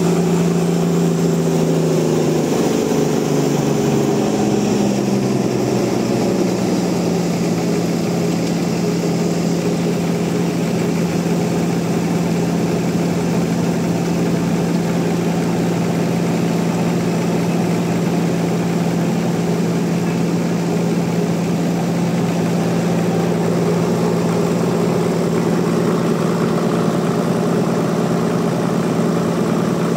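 Sawmill machinery running with a loud, steady engine-like hum; in the first few seconds some of its higher tones shift before the sound settles to an even drone.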